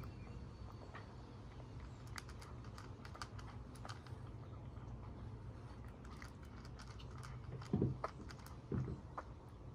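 A tabby cat eating from a bowl: small, irregular clicks and crunches of chewing. Two low thumps come near the end.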